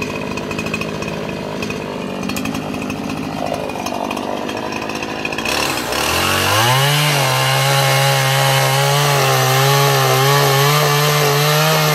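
Two-stroke chainsaw running unevenly at low revs, then revved to full throttle about six seconds in and held at high revs with a slightly wavering pitch, cutting into a dead mesquite log.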